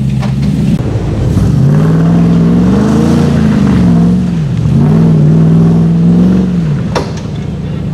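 Modified Jeep's engine revving under load as it crawls up a rock ledge: the pitch climbs, dips briefly around the middle, climbs and holds again, then drops back near the end. A single sharp knock about seven seconds in.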